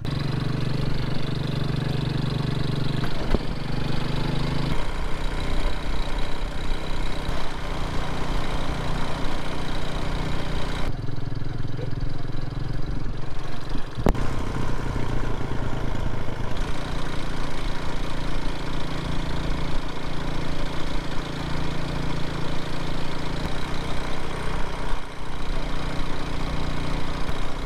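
Small motorbike engine running steadily while riding, mixed with road and wind noise; the engine note changes abruptly several times.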